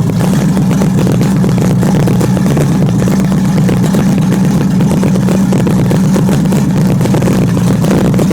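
Engine of a custom 1929 Chrysler project car running steadily at idle.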